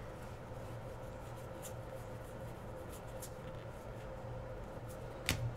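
Faint rustling and sliding of trading cards being handled and flipped through, over a steady low electrical hum, with one sharper click near the end.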